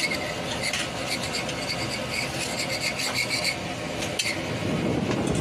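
Spatula scraping across a flat dosa griddle in quick repeated strokes as a masala dosa is loosened and folded, then one more scrape about four seconds in.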